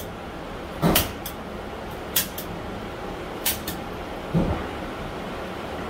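A handful of short, sharp clacks and a couple of dull knocks over a steady background hiss, as a paper target is handled on the carrier at an indoor range lane.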